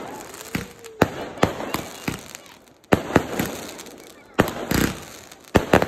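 Fireworks going off in quick succession: a dozen or so sharp bangs, several in close pairs, each trailing off with an echo.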